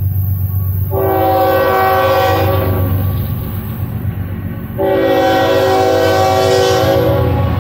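Norfolk Southern diesel freight locomotive approaching and blowing its multi-chime air horn: one blast about a second in that tapers off, then a second blast from about halfway through, held to the end. A steady low diesel rumble runs underneath.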